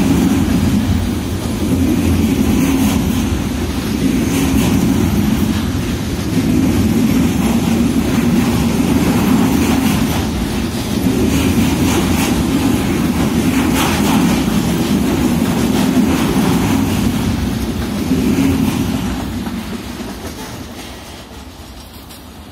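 Container freight train's flat wagons rolling past close by: a steady rumble of steel wheels on rail with irregular clacks as the bogies cross rail joints. The sound fades away over the last few seconds as the end of the train moves off.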